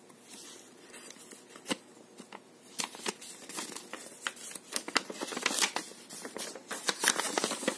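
Folded paper instruction leaflet being unfolded and opened out by hand: soft rustling of paper with scattered crisp crackles, a few sharper snaps in the second half.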